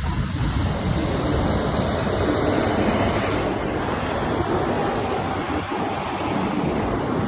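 Mondial Turbine fairground thrill ride running, a steady, loud rushing noise of the machine in motion.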